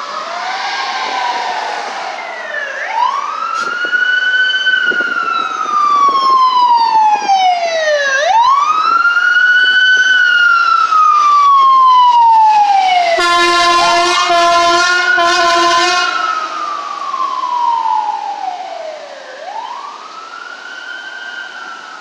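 Emergency vehicle siren on wail, sweeping up and down about every five and a half seconds as a Los Angeles Fire Department rescue ambulance drives past. A steady horn blast lasting about three seconds sounds just after it passes, and a second siren overlaps in the first two seconds.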